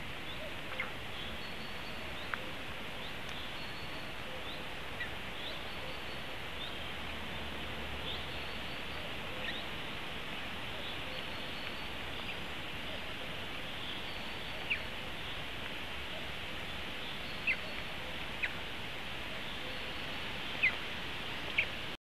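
Small woodland birds calling over a steady hiss: scattered short high chirps, with a few sharper, louder chips in the last several seconds. The sound cuts off suddenly at the end.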